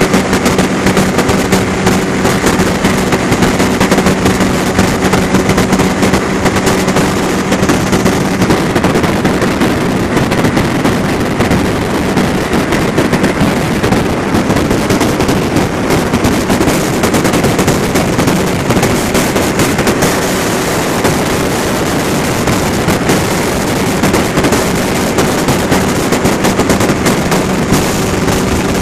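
Engine and propeller of an open ultralight aircraft droning steadily in flight, with heavy wind buffeting the microphone. The engine's steady hum is clearest for the first several seconds, sinks under the wind rush through the middle, and comes back near the end.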